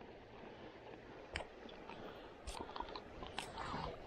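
Small plastic toiletry items being handled over a toiletry bag: a few faint sharp clicks and light rustles as a ribbed plastic case is opened and things are taken out.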